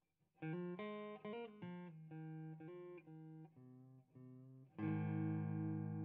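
Fender Blacktop HH Stratocaster electric guitar played through an amplifier: a run of single picked notes, then a loud chord strummed near the end and held.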